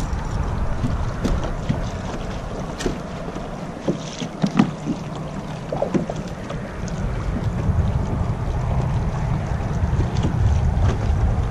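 Wind buffeting the microphone over water moving against a kayak, a steady low rumble. A few light knocks and clicks of tackle being handled come about three to six seconds in.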